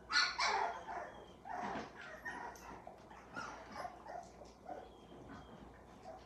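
Young American pit bull terrier puppies in a litter crying, a run of short high whimpers and yips. The loudest comes right at the start, another about a second and a half in, then softer ones.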